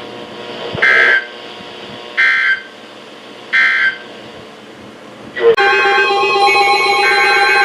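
NOAA weather radio broadcasting the three short EAS/SAME end-of-message data bursts, a harsh digital screech repeated three times. About five seconds in, a weather radio's electronic alert alarm starts: loud, steady and many-toned, changing its pattern as it goes, signalling an incoming warning.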